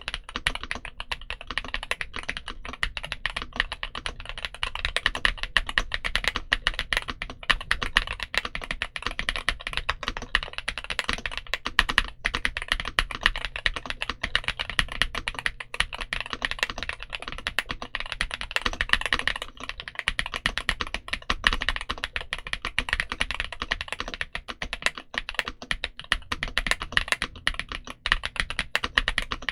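Typing on a Yunzii AL65 mechanical keyboard fitted with Gateron Zero switches: a steady, fast run of keystrokes, many clicks a second, with no pauses.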